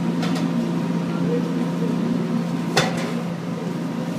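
Cremator's burner and blower running as a steady, even mechanical drone with a low hum, with one sharp knock about three seconds in.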